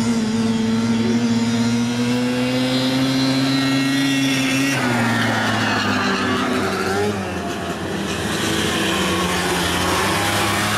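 Engines of six-wheel 6x6 ATVs drag racing at full throttle, a loud steady engine note. About halfway through the sound changes to a lower engine note that falls in pitch.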